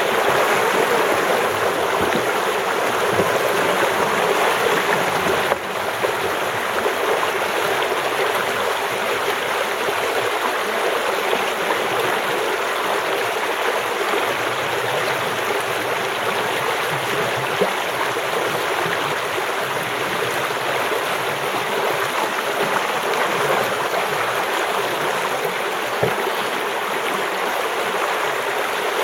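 Creek water rushing and splashing steadily, with a slight drop in level about five and a half seconds in.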